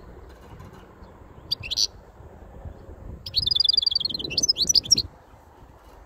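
European goldfinch singing: a short chirp about a second and a half in, then a twittering phrase that opens with a fast run of repeated notes and breaks into quicker varied twitters, ending about five seconds in.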